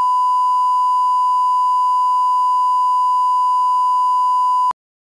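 A TV-style 1 kHz reference test tone of the bars-and-tone and countdown-leader kind: a single steady, pure beep that cuts off suddenly near the end.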